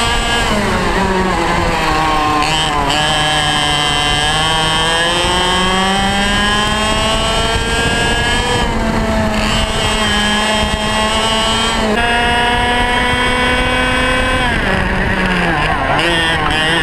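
Two-stroke racing kart engine heard onboard, its pitch climbing under acceleration and dropping as the throttle is lifted for corners, over and over. The sound breaks off abruptly a few times where one clip jumps to the next.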